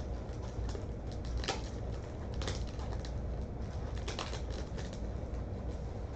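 Irregular light clicks and taps over a low steady hum, a few of them sharper, about one and a half, two and a half and four seconds in.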